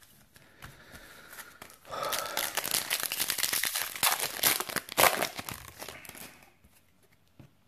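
Foil Yu-Gi-Oh booster pack wrapper being torn open and crinkled by hand. The crackling starts about two seconds in and lasts about four seconds, then stops as the cards come out.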